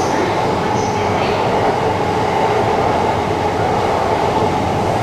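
Train running along the tracks: a steady, even rumble of wheels on rail.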